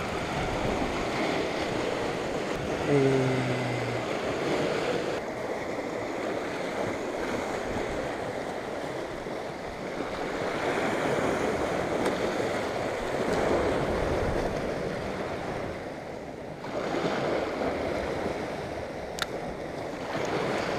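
Sea waves washing against a rocky shore, with wind buffeting the microphone. The noise shifts abruptly a few times. About three seconds in there is a short low tone, and near the end a single sharp click.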